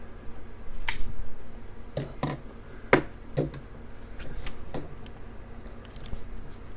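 Sharp clicks and light knocks as a framelock pocket knife is handled, about half a dozen spread over several seconds.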